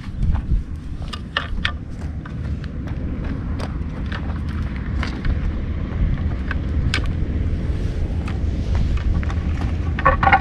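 Wind buffeting the microphone outdoors, a steady low rumble, with scattered light clicks and taps throughout and a brief brighter rustle near the end.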